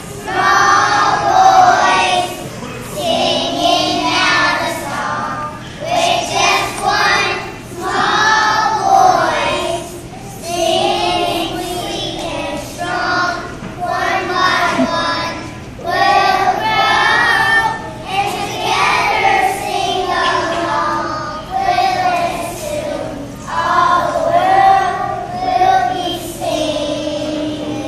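A group of preschool children singing a song together, in short phrases with brief breaks between them.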